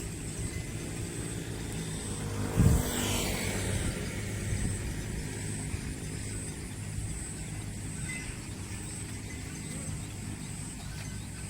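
An engine running steadily, with a loud thump about two and a half seconds in.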